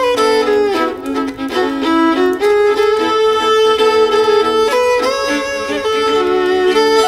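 Violins playing a tune together in harmony: mostly long held notes, with a run of quicker note changes about a second in.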